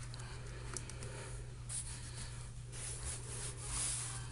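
Soft rubbing and sliding of hands on a cardboard phone box, with a couple of light ticks about a second in, over a steady low hum.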